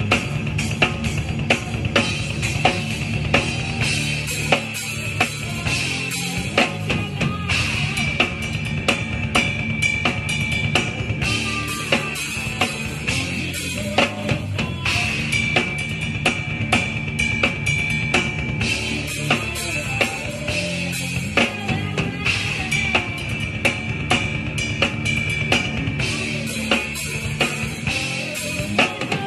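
Band playing live, with the drum kit loudest: kick, snare and cymbals in a steady beat, over electric guitar and bass.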